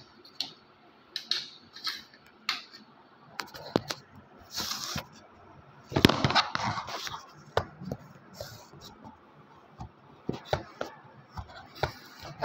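Scattered light clicks and knocks of hand tools and a steel switch board plate being handled. A louder rustle of the phone being moved comes about six seconds in.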